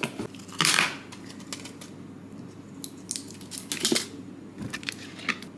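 Small objects being handled by hand: a short rustle about half a second in, then scattered light clicks and taps, several close together around three to four seconds in.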